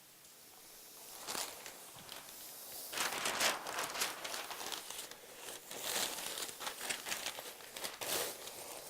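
Packing paper crinkling and rustling as it is handled, in irregular bursts starting about a second in.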